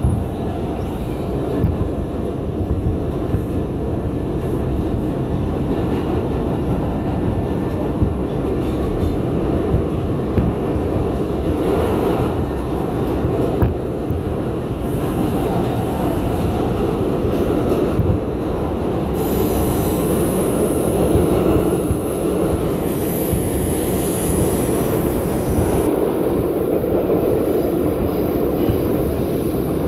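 New York City Subway Bombardier R142 train running, with a steady loud rumble of wheels on rail. A high wheel squeal joins in about two-thirds of the way through.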